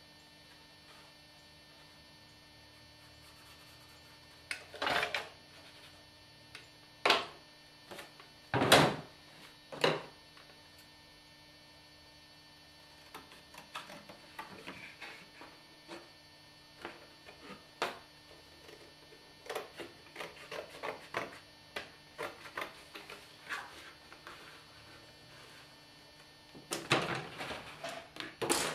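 Cardboard being handled and cut into a template over a steady electrical hum. A few loud knocks come in the first third, then a long run of light, irregular taps and crackles, and a louder rustling clatter near the end.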